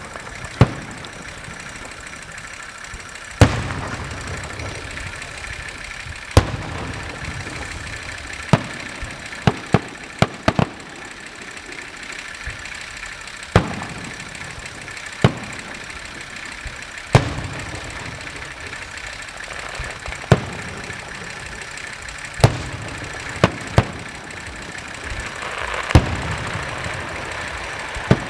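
Aerial firework shells bursting: sharp, loud bangs every few seconds at an irregular pace, with a quick run of four or five about ten seconds in. A few of the bangs trail off in a low rumble, and a steady hiss lies underneath.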